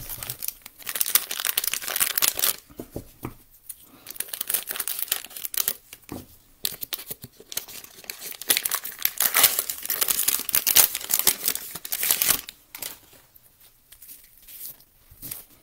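Plastic wrapper of a Donruss fat pack of trading cards being torn open and crinkled, dense crackling for about twelve seconds, then only light rustling near the end.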